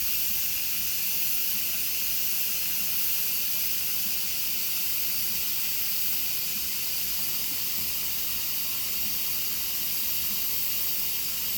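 Instant Pot's pressure-release valve venting steam in a steady hiss, letting the pressure out at the end of the cook.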